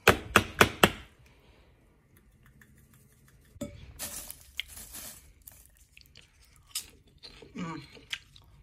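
A seasoning shaker knocked and shaken four times in quick succession over a glass bowl of popcorn, then a short rustle about four seconds in, with scattered small clicks.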